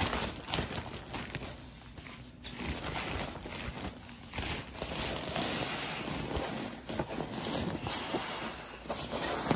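Thin nylon pump sack of a Therm-a-Rest NeoAir UberLite sleeping pad rustling and flapping as it is swung open to catch air, then crinkling as it is rolled down and squeezed to push the air into the pad. This is hand inflation of the ultralight pad.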